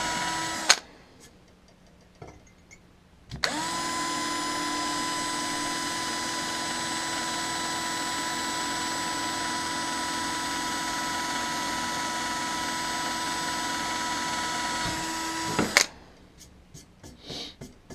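Electric drill running with a steady whine, boring a hole at the end of a crack in a brass check valve casting to stop the crack spreading. It stops just under a second in, spins back up about three seconds in, runs steadily for about twelve seconds and stops near the end.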